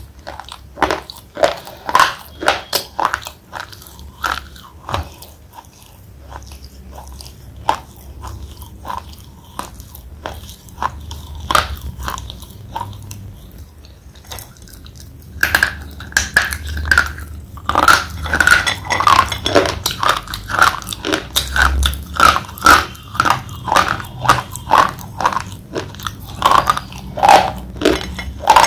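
Thick slate pencil being bitten and chewed close to the microphone: a string of sharp, dry crunches, sparser and quieter through the middle, then denser and louder from about halfway on.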